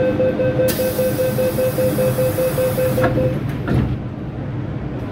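MTR M-Train electric multiple unit coming to a stand at the platform, with a low rumble throughout. About a second in, a loud hiss of released air starts and runs for about two seconds, ending in a click. Over the first three seconds a door warning beeps steadily, about three or four beeps a second.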